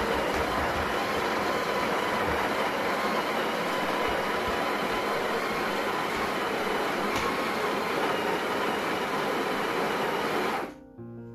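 Electric coffee grinder running steadily, grinding espresso beans; the motor cuts off suddenly near the end, and music with steady notes follows.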